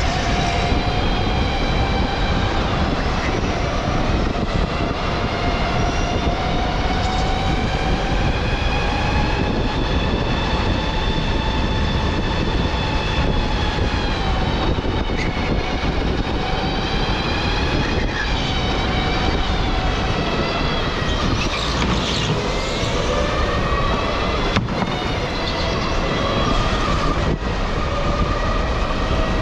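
Electric go-kart's motor whining, its pitch rising and falling again and again as the kart speeds up and slows, over a steady rushing rumble.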